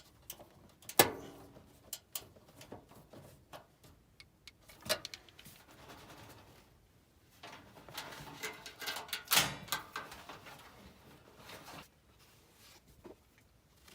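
Scattered clicks, knocks and rattling from parts and tools being handled during work on a gas furnace's blower. A sharp knock about a second in, another near five seconds, and a busier stretch of rattling and clatter around eight to ten seconds.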